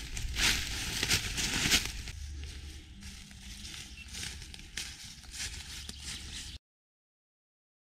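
Footsteps crunching through dry fallen leaves, a step about every half second, loud at first, then fainter and more scattered. The sound cuts out to dead silence about a second before the end.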